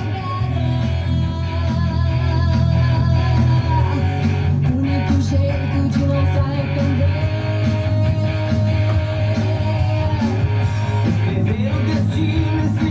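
Rock song played over the radio, with guitars over a steady bass and drums.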